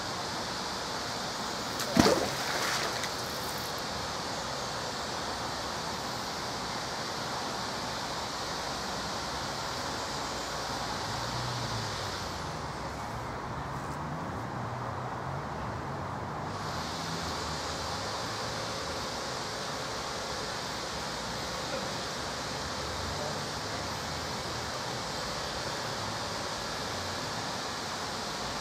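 Steady rushing outdoor noise, with one sharp knock about two seconds in that rings briefly.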